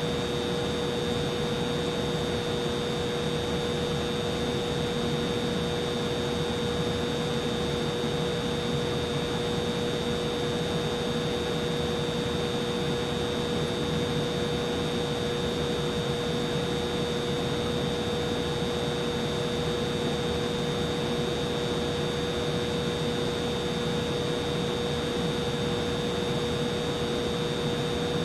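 Humidifier running steadily: an even whir with a constant hum and a high, thin whine over it.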